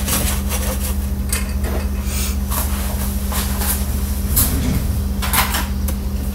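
Scattered knocks and clicks of kitchen things being handled, a cupboard door and pots and utensils, over a steady low hum.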